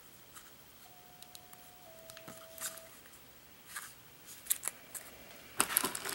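Light clicks and taps from handling a handheld radio, then, about five and a half seconds in, loud rustling and crinkling of the box's packaging as a hand reaches into it.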